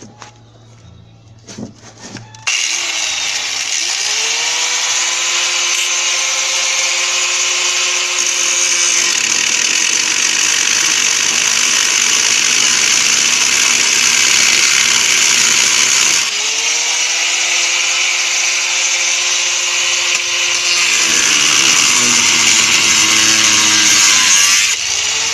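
Angle grinder with a thin cut-off wheel cutting sheet metal. It starts about two and a half seconds in and runs steadily with a hissy grinding noise over its motor whine. The pitch sags and recovers about sixteen seconds in, and the grinder stops near the end.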